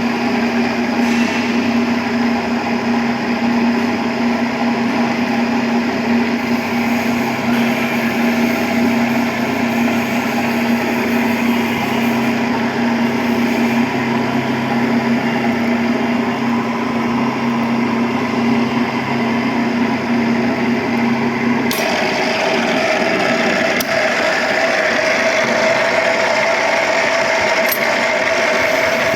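Electric pipe-threading machine running steadily with a strong motor hum. About 22 seconds in, the sound changes abruptly to a higher-pitched hum and keeps running.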